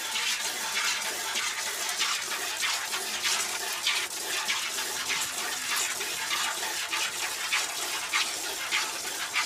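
Milk squirting by hand from a Holstein-Friesian cow's teats into a plastic bucket: a rhythmic hiss of squirts, about two a second.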